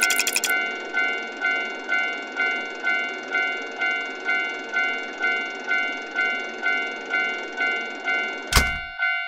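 Japanese railroad crossing alarm ringing its repeated 'kan-kan' at about two strikes a second, each strike fading before the next. A sharp click comes near the end.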